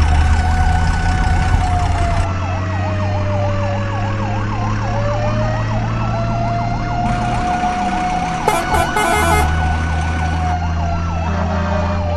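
Fire engine siren: a fast yelp rising and falling about three or four times a second over a slower wail, with a steady low engine drone underneath. A short clatter comes about eight and a half seconds in.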